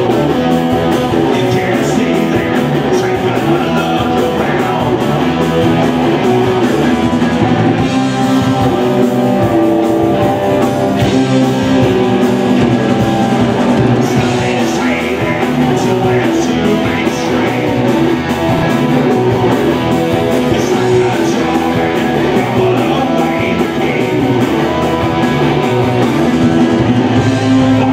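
Live rock band playing: electric guitars, bass guitar and drum kit driving a steady beat, with a man singing into a microphone in places.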